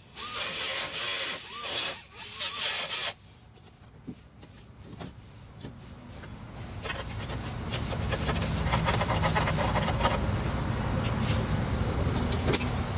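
A small cut-off wheel grinds into the steel inner panel of a Ford F-150 door, cutting the access spots over the window motor's mounting bolts, and stops abruptly about three seconds in. After a short quiet spell a low rumble with scattered clicks builds steadily through the second half.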